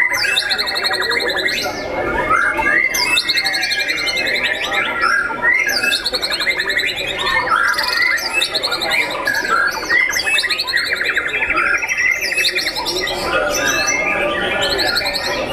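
Several caged white-rumped shamas singing at once: dense, overlapping whistled phrases, chirps and fast buzzy trills that go on without a break.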